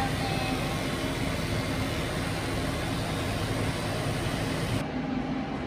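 Pet drying cabinet blowing a steady rush of air over a wet dog. About five seconds in, it changes abruptly to a duller, lower blowing sound.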